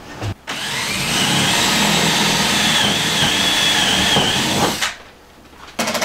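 18-volt cordless drill running for about four seconds, its motor whine rising at first and then holding steady before it stops.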